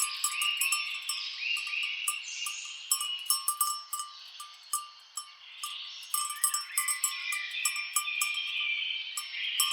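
Cowbells on grazing cattle clinking irregularly, with many sharp metallic clicks, while birds chirp repeatedly.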